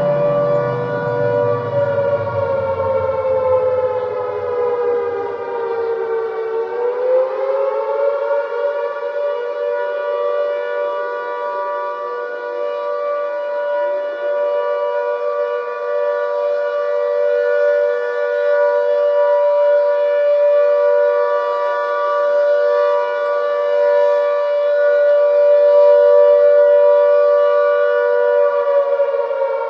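Civil defense siren sounding a steady wail as a chord of two close tones. The pitch sags about six seconds in, climbs back and then holds level. A deeper tone winds down and fades in the first few seconds.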